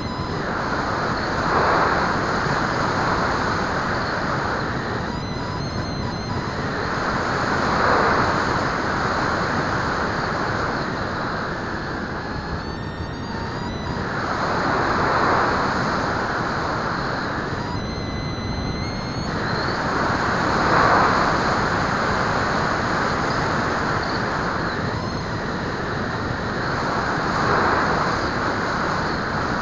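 Wind rushing over the onboard camera's microphone of a Bixler electric pusher plane in flight, with a faint high, steady whine from its brushless motor. The rush swells and eases about every six to seven seconds.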